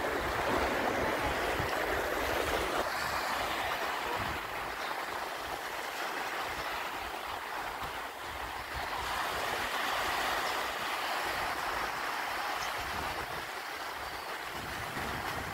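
Small waves washing and breaking in shallow surf, with wind buffeting the microphone.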